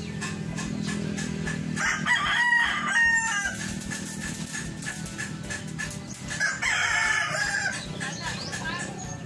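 Roosters crowing twice: one crow about two seconds in and another about four seconds later, each lasting about a second and a half.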